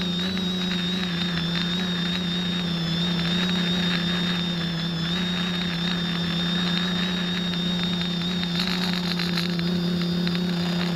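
Quadcopter's four electric motors and propellers running in flight, heard from the camera mounted on the craft: a steady buzzing hum with a thin high whine above it, its pitch wavering slightly. A brief burst of high hiss comes in about eight and a half seconds in.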